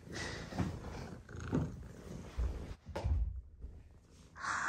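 Upholstered sofa cushions being lifted, shifted and pressed into place: irregular soft thuds and fabric rustling, the heaviest thuds a little past halfway. A short breathy noise follows near the end.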